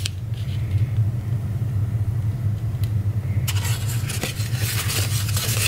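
Steady low hum throughout. From about three and a half seconds in, cardstock paper rustles and crackles as a folded paper box is picked up and handled, with a few small clicks.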